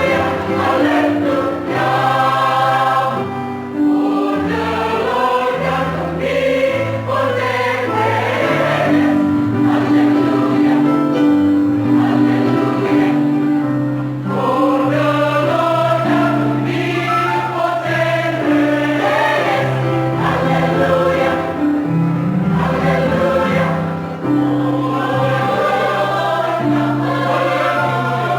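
Church choir singing in several voice parts at once, with a sustained bass line under the higher voices. The singing starts abruptly at the very beginning.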